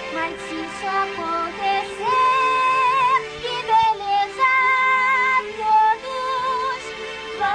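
A female voice sings a song with long held notes that waver in vibrato, over instrumental backing music.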